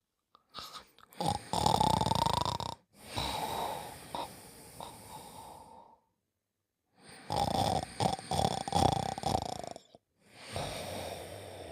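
Cartoon character snoring: two loud, rough snores, each a rattling in-breath of about a second and a half followed by a softer, longer out-breath.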